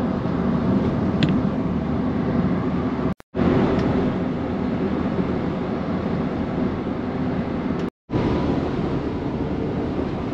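Road and engine noise inside a moving car, a steady rumbling hiss that cuts out abruptly twice, about three and eight seconds in.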